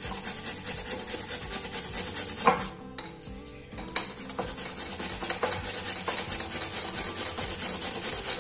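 A potato being grated on a metal box grater: quick, rhythmic rasping strokes. A sharp knock comes about two and a half seconds in, followed by a brief pause before the grating resumes.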